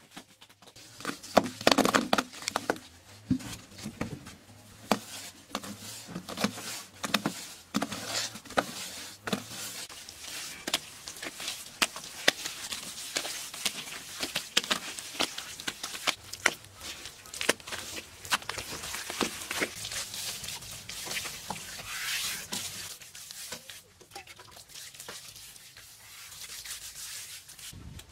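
Bare hands slapping, spreading and rubbing wet mud to plaster a floor: a run of wet slaps and smacks over scraping, smearing rubs, loudest about two seconds in.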